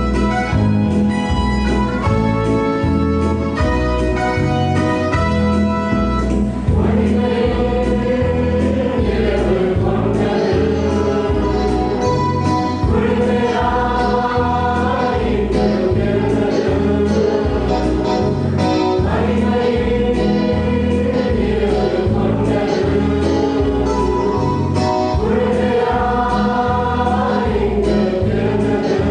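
Mixed choir of men and women singing a Tamil Christmas carol over an electronic keyboard accompaniment with a steady bass beat. The keyboard plays alone at first, and the voices come in about six seconds in.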